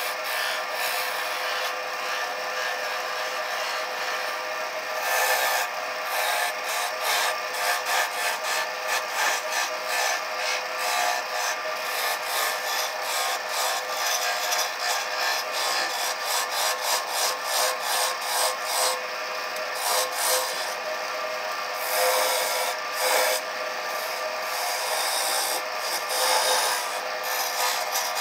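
A wood lathe running, with a hand-held turning tool cutting into a spinning cherry blank: a steady hiss of the cut over the machine's hum. From about five seconds in, the cuts come as short repeated strokes, roughly two a second, with a few louder passes near the end.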